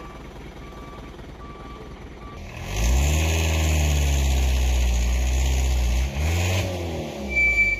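Reversing beeper on a Mitsubishi Colt Diesel box truck sounding at a steady pace over its idling diesel engine. About two and a half seconds in, the engine is revved hard and held at high revs for about three seconds, dips briefly, revs again, then drops back, as the underpowered truck strains on a steep climb it has stalled on several times.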